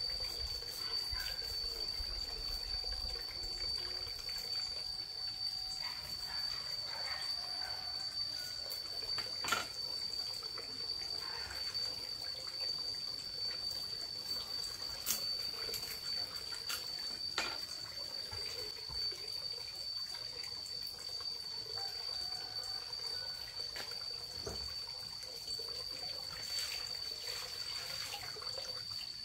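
Water running and trickling, with a steady high-pitched tone throughout and a few sharp clicks.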